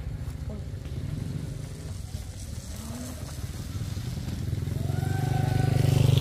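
Motorcycle engine running, with a steady low pulse that grows louder near the end.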